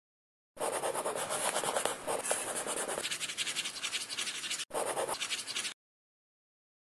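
Marker scribbling on paper, a drawing sound effect: rapid scratchy strokes for about five seconds, with a short break a little before the end.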